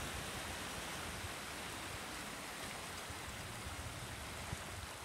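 Small waves washing onto a sandy beach: a steady wash of surf noise with a low, uneven rumble underneath.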